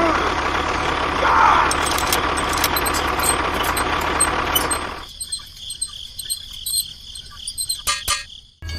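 A small motor running steadily with a hiss and low hum; about five seconds in it drops away to a quieter stretch of scattered clicks and ticks, which cuts out just before the end.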